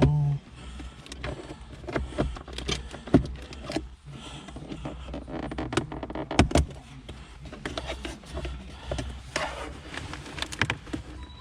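Plastic interior console trim being pried and worked loose around a car's shifter: irregular sharp clicks and knocks, the loudest about three seconds in and again halfway through, over a low steady hum.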